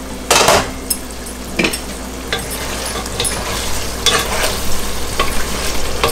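Wooden spatula stirring chicken in a pot, scraping the bottom in short repeated strokes, with a low sizzle from the nearly cooked chicken and its gravy. A louder rasp comes about half a second in.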